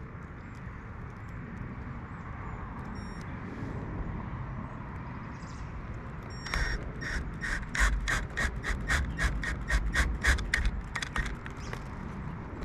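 A cordless drill driving self-drilling stainless screws into an RV skylight's flange on the roof, heard from about halfway in as a run of rapid, regular clicks with dull thuds beneath, stopping about a second before the end. Before that there is only a steady outdoor hiss.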